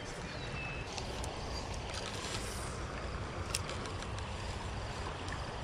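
Wind rumbling on the microphone over the steady wash of a flowing stream, with a faint click about three and a half seconds in.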